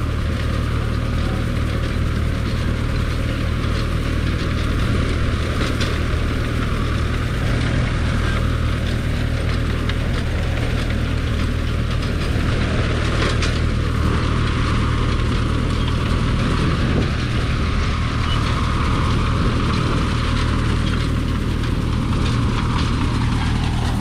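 A farm tractor's engine running steadily as it pulls a McCormick-Deering grain binder, with the binder's cutter bar, reel and tying mechanism clattering as it cuts and bundles wheat. A few sharper knocks stand out, one near a quarter of the way in and one about halfway.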